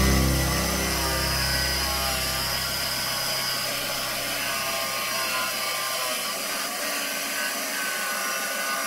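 Makita jigsaw running, its blade cutting through a wooden drawer panel.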